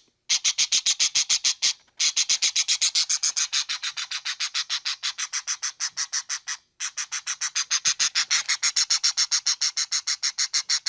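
An animal's rapid pulsed call: a fast, even trill of high-pitched clicks, about seven a second, in long runs with brief breaks.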